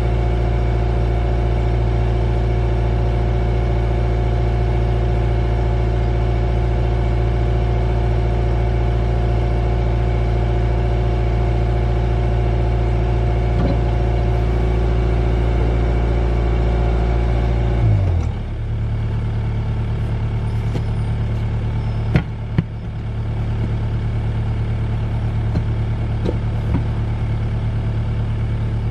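Mini excavator's diesel engine running steadily at a fixed throttle. About 18 seconds in, the note drops abruptly to a lower idle, and a few sharp knocks follow later.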